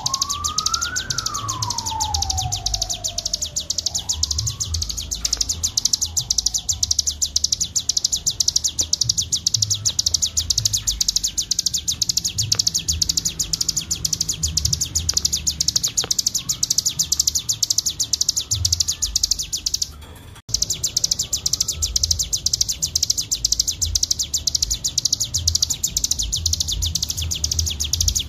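Ciblek gunung (cigun) songbird singing its continuous 'ngebren' song: a very fast, high-pitched buzzing trill that goes on without pause except for a brief break about twenty seconds in. In the first few seconds a lower whistle slides up and down underneath it.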